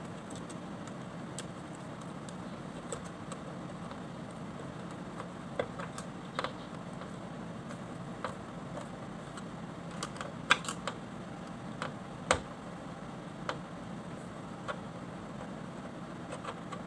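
Screwdriver tightening screws on a pickup's engine air filter housing: scattered irregular clicks and ticks, a few sharper ones about ten and twelve seconds in.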